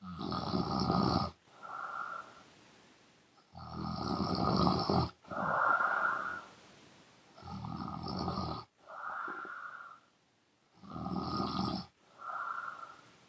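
A woman snoring loudly through an open mouth, in a slow regular rhythm. There are about four breaths, each a long, loud snore followed by a shorter, softer breath, with brief pauses between them.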